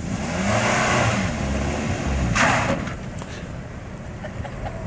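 Nissan sedan engine revving up and down under load as the car strains against a rope tied to a bush, with a rush of noise and a short harsh burst about two and a half seconds in. It then drops back to a steady idle.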